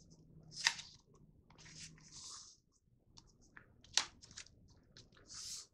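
A sheet of paper being folded and creased by hand: scattered crinkles and soft rustles, with two sharper crackles, one under a second in and one about four seconds in.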